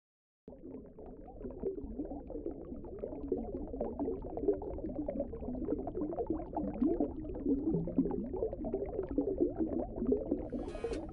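Bubbling, gurgling underwater sound effect, starting about half a second in and growing slightly louder. A strummed guitar comes in just before the end.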